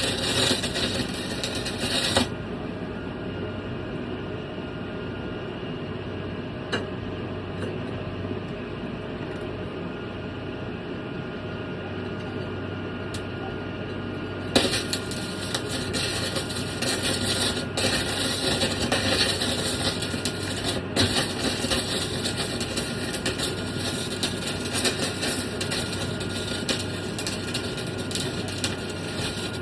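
Electric arc welding on steel: the arc crackles and spits for about two seconds, stops, leaving a steady duller hum, then is struck again about halfway through and crackles on continuously.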